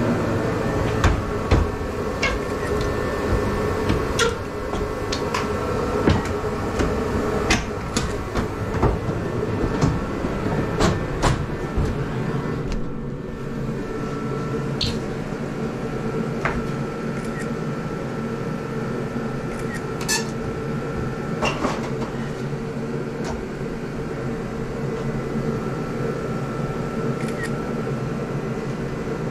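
A steady mechanical hum throughout, with scattered sharp knocks and clatters, thickest in the first twelve seconds or so and sparse after that.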